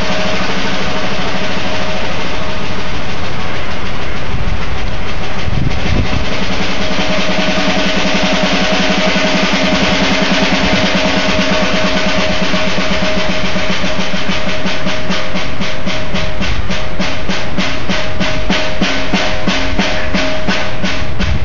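Solo on a jazz drum kit: a fast, dense stream of strokes on snare and drums, which turns about two-thirds of the way through into an even pulse of about three strokes a second.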